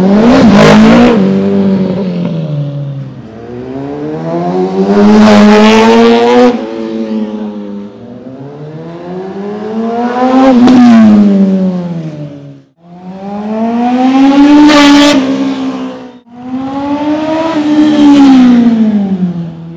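Motorcycle engine revved about five times, its pitch rising slowly and falling back over a few seconds each time.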